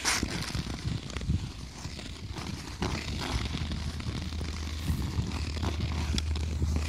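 Ice skate blades scraping and gliding over snow-dusted natural ice in repeated strides. A steady low rumble comes in about three seconds in.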